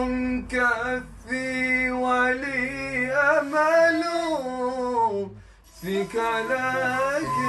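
Unaccompanied singing of an Arabic devotional qasida, with long held notes ornamented by wavering runs; the voice breaks off briefly about five and a half seconds in, then resumes.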